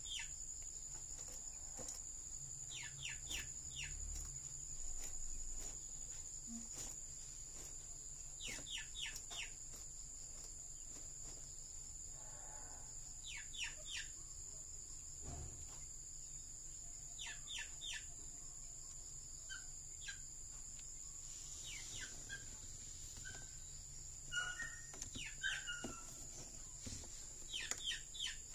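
A bird calling every four to five seconds in quick runs of three or four short falling notes, over a steady high-pitched insect drone.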